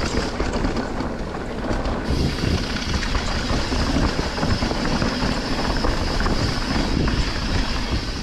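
Downhill mountain bike running fast down a dirt trail: wind rushing over the camera microphone, tyres rumbling on the dirt, and the bike rattling and knocking over bumps and roots.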